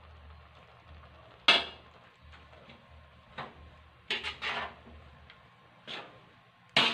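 Metal spatula knocking and clanking against a large metal wok while tossing a full batch of noodles: several separate strikes, the loudest about one and a half seconds in and a quick run of them around four seconds in.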